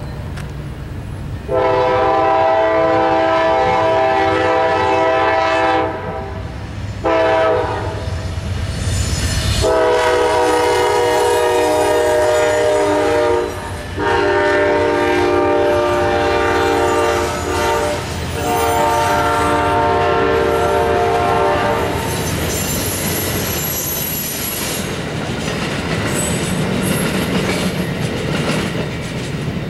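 Amtrak Crescent's diesel locomotive horn sounding for a grade crossing: a long blast, a short one, then two more long ones, the last held about eight seconds. After that, the train's passenger cars roll past.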